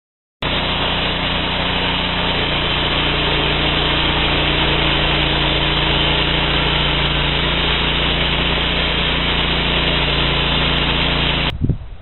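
Homemade band sawmill running and sawing through a mesquite log: a loud, steady machine noise with a low hum underneath. It starts abruptly just after the beginning and drops away near the end.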